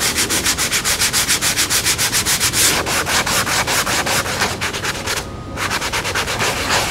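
Hand sanding the spackle-coated foam surface of a model airplane wing: fast, even back-and-forth scratching strokes, about six a second, with a brief pause about five seconds in.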